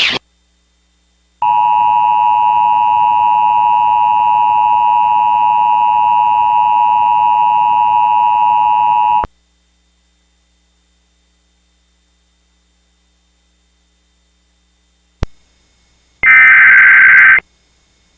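Emergency Alert System attention signal: a steady two-tone alarm of about 853 and 960 Hz held for roughly eight seconds and then cut off. Later comes a click, then a loud burst of higher tones about a second long near the end.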